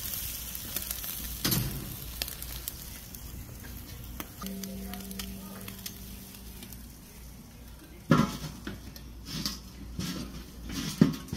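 Chicken leg quarters sizzling on the grate of a charcoal kettle grill, a steady frying hiss. Sharp knocks come about eight seconds in and again near the end as the grill's metal lid is handled, the first being the loudest.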